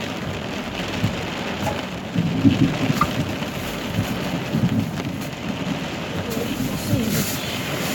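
Heavy rain pouring down steadily in a thunderstorm, with low rumbles swelling up about two and a half seconds in and again around five and seven seconds.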